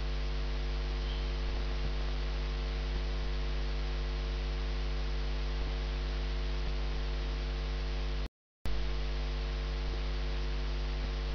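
Steady electrical mains hum with a stack of overtones and faint hiss, the background hum of the recording. It cuts out completely for a fraction of a second about eight seconds in, then resumes.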